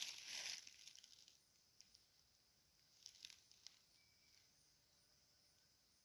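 Near silence after a brief crackling rustle that fades out within the first second, with a few faint ticks about three seconds in.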